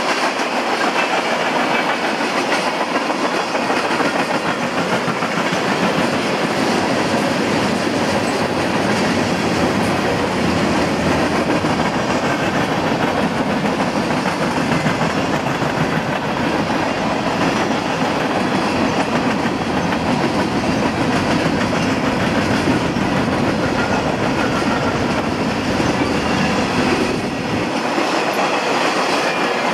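Freight cars (tank cars and covered hoppers) of a CSX train rolling steadily past, a continuous rumble of steel wheels on the rails, easing briefly near the end.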